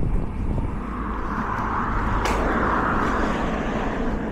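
Passing road vehicle heard from a moving bicycle: its noise swells over a couple of seconds and fades again, over a steady low rumble, with a single sharp click a little past two seconds in.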